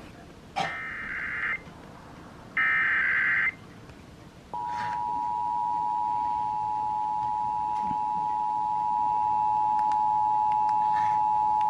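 Emergency Alert System SAME header: two bursts of screechy digital data tones about a second long each, a second apart. About four and a half seconds in, the EAS two-tone attention signal starts, 853 Hz and 960 Hz sounding together as a steady harsh dual tone that runs to the end. It is heard over FM radio and announces a Required Monthly Test.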